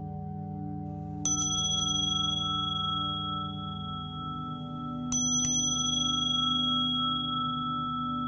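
Tibetan singing bowls humming in a low, wavering drone, while a small bright bell is struck twice in quick succession about a second in and again about five seconds in, each pair ringing on in high clear tones.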